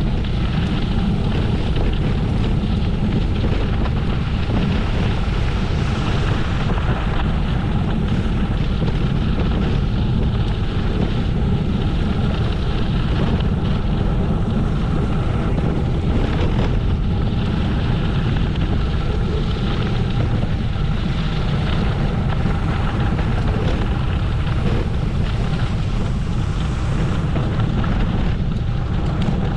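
Steady wind rumble on the microphone of a camera riding along on a bicycle, with a fainter hiss of motion and tyre noise above it.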